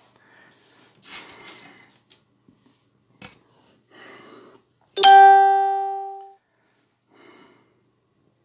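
A single bright chime about five seconds in, starting sharply and fading out over about a second and a half. Before it come soft rustling and a click as the phone is handled.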